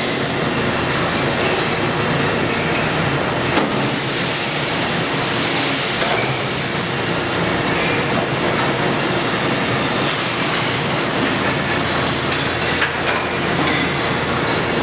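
Industrial machinery running steadily, a continuous mechanical noise with a few faint clicks and knocks.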